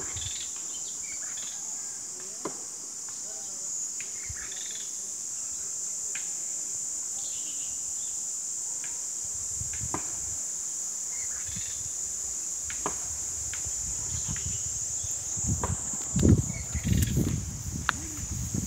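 A steady, high-pitched chorus of insects droning without a break. Near the end, low rumbles hit the microphone and briefly become the loudest sound.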